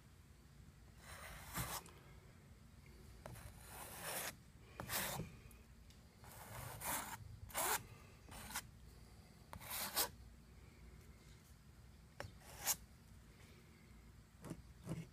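Thick paint being worked onto a canvas: about a dozen short, irregular scraping rubs.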